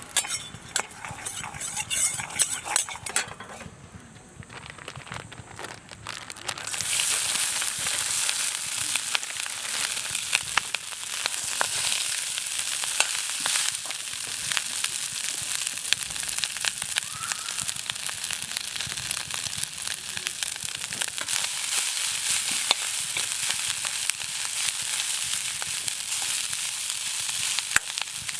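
A few clicks and knocks, then about seven seconds in meat starts to sizzle loudly in a hot pan over the campfire. The sizzle goes on steadily, dotted with small crackling pops.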